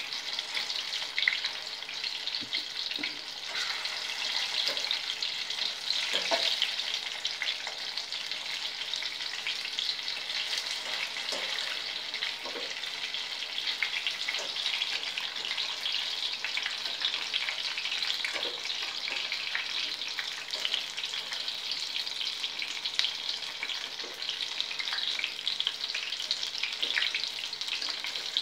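Batter-coated chapati pieces deep-frying in hot oil in a steel pan: a steady crackling sizzle.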